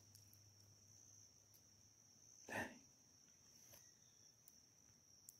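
Near silence, with a faint steady high-pitched whine and one short, soft sound about two and a half seconds in.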